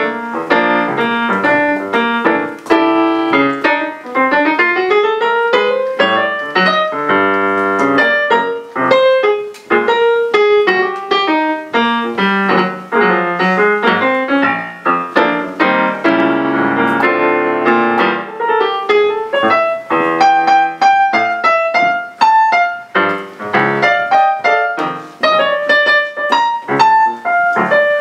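Solo piano playing a flowing instrumental passage of separate notes, with runs that climb and fall in pitch.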